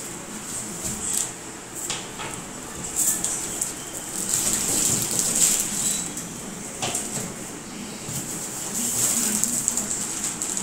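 Cardboard TV box being opened and unpacked: cardboard flaps scraping and plastic packaging crinkling, with a few sharp knocks along the way.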